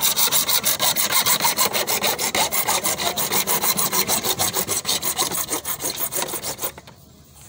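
Hacksaw cutting through a black plastic drainage pipe with quick, even back-and-forth strokes, which fade and stop a little before the end.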